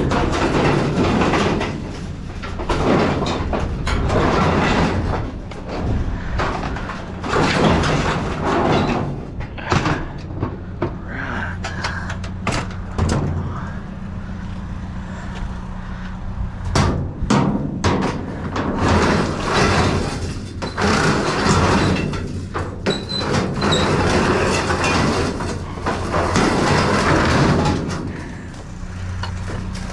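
Metal fluorescent light fixtures being handled: repeated clattering, knocking and scraping of sheet metal, at irregular intervals throughout, over a steady low engine hum.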